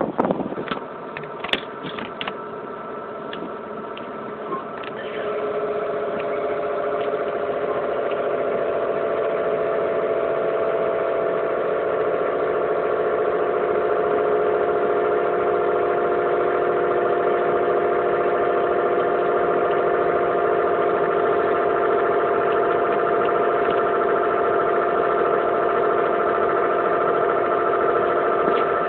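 Crane truck's engine and hydraulics running. A few clicks and knocks come in the first seconds, then about five seconds in a steady whining drone at one fixed pitch sets in, grows a little louder, holds, and cuts off near the end.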